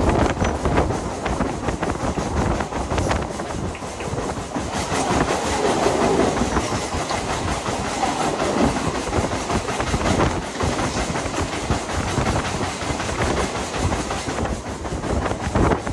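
Mumbai suburban electric local train running at speed, its wheels clattering over the rail joints, heard from the open doorway. From about five seconds in until near the end, another local train rushes past close alongside in the opposite direction, making the sound denser and louder.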